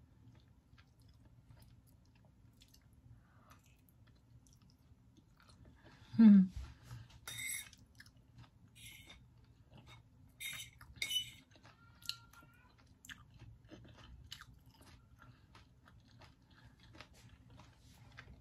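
A person chewing a mouthful of food, with faint small mouth clicks and a few light clinks of a fork against a plate. About six seconds in there is one loud short sound that drops in pitch.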